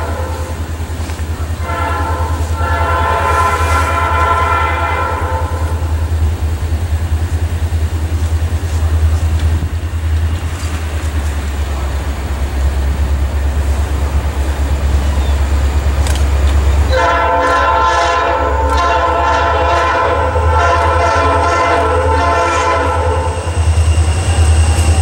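Air horn of an approaching EMD SD40-2 diesel locomotive sounding a chord in long blasts: one ending just after the start, one of about four seconds starting about two seconds in, and one of about six seconds starting about seventeen seconds in. A steady low rumble runs under it.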